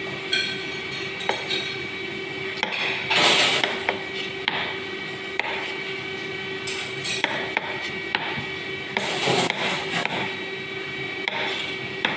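Irregular knocks and clatter of kitchen utensils during food preparation, with a few louder scraping bursts, over a steady machine hum.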